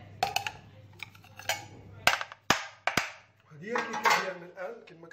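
Sharp knocks and clatter of a metal loaf tin against a plate as a baked cake is turned out, about half a dozen separate hits in the first three seconds. A voice is heard over the last second and a half.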